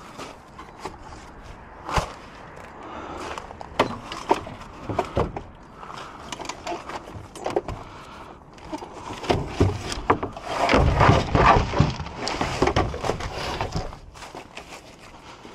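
Wood debris and junk being handled and carried: scattered knocks and clatter of wooden pieces, with a louder, denser run of clatter from about ten seconds in that lasts a few seconds.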